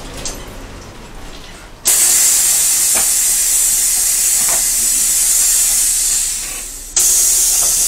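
Loud steady hiss that starts suddenly about two seconds in, fades and cuts off near seven seconds, then starts again at once, over a low rumble, with a couple of faint ticks.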